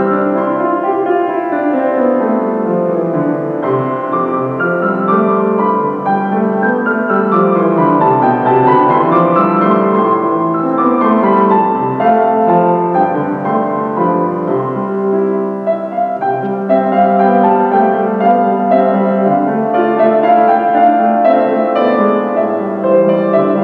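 Solo piano playing a flowing, classical-style piece as the postlude after the dismissal, with runs of notes rising and falling over sustained chords.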